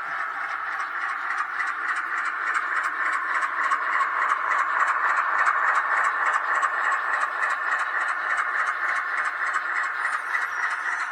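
H0-scale model train running along the track, its wheels and drive rattling steadily, with sharp clicks from the rail joints at about four a second.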